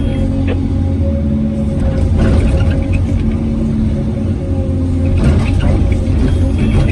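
Hyundai R850LC excavator's diesel engine running steadily, a loud low drone with a steady higher hum over it. Two short, rougher noises come about two and five seconds in.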